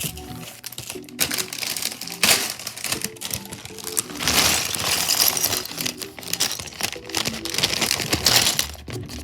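Plastic crinkling and rustling with scattered small clicks as LEGO Technic pieces and their plastic bags are handled, over background music. The crinkling is loudest about four seconds in and again near the end.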